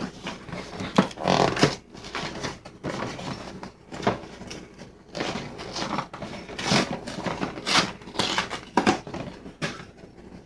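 Cardboard K-Cup box being torn open and handled: a string of irregular tearing, scraping and crinkling noises.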